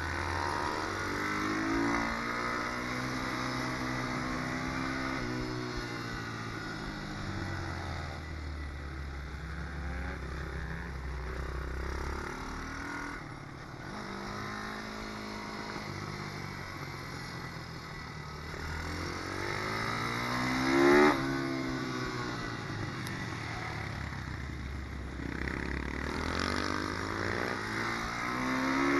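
Malcor Super Racer 190 pit bike's single-cylinder engine under riding load, revving up and falling back again and again through gear changes and corners. A sharp rise in pitch about two-thirds of the way through is the loudest moment.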